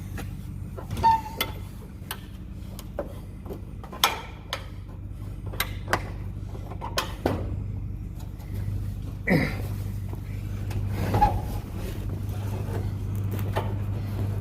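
A large barn door being pulled shut: scattered knocks, clacks and rattles of the door and its hardware, about a dozen in all. Under them a steady low engine hum gets louder about two-thirds of the way through.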